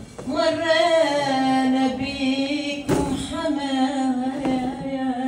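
A woman singing unaccompanied, without words, holding long, slightly wavering notes in two phrases, the second beginning about three seconds in.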